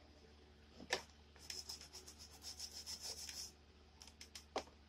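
Handling noise: a sharp click about a second in, then about two seconds of quick scratchy rubbing, and a few more clicks near the end.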